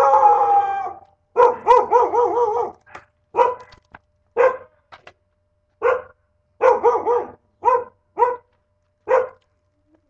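A dog barking over and over. A long first bark is followed by a quick run of barks that waver in pitch, then single barks at uneven gaps.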